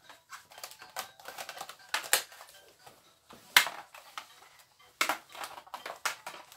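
Hollow clear plastic track tubes and connectors clicking and knocking against each other as they are handled and pushed together: an irregular string of clacks, the sharpest knock about three and a half seconds in.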